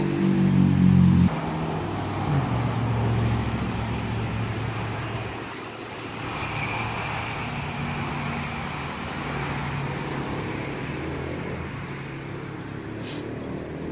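A motor vehicle engine running over steady road noise, its pitch stepping down in the first second or so. There is a brief high tick near the end.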